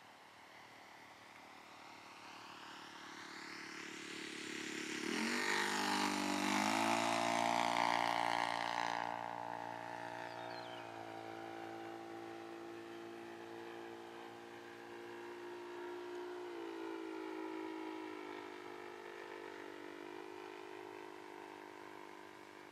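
A Saito FG-20 single-cylinder four-stroke gas engine runs on an RC Cessna 182 model in flight. It grows louder as the plane comes closer, peaks about six to nine seconds in with a marked shift in pitch, then drones on more quietly as it flies away, with another small pitch change later on.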